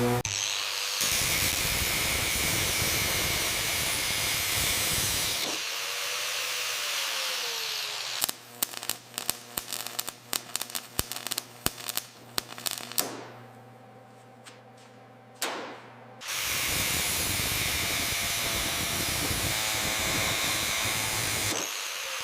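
Workshop power-tool noise: a steady hiss, then a run of sharp, irregular clicks and knocks over a low hum, then the steady hiss again.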